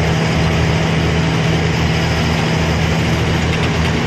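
Goods truck's diesel engine running steadily while cruising on the highway, a constant low drone with road noise.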